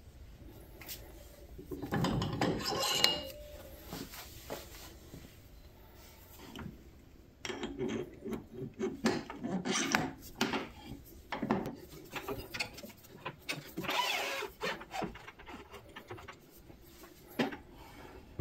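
Irregular clicks, clinks and short scrapes of metal tooling being handled at a stopped wood lathe, as the tailstock drill chuck and bit are swapped for a live centre. The sounds come in bunches, with the loudest about three seconds in.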